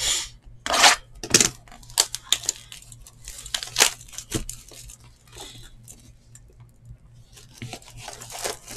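Packaging on a trading-card box being torn open and crinkled by hand: a series of short, sharp rips, most in the first few seconds, then scattered crackles.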